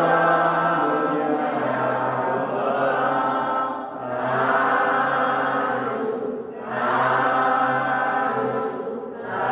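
Buddhist chanting in a low male pitch, sung in long held phrases of about three seconds each with short breaks for breath between them.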